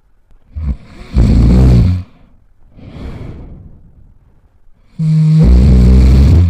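A person snoring: two loud rattling snores, each about a second and a half long, with a softer breathy breath between them. The second snore begins with a brief steady hum before the rattle.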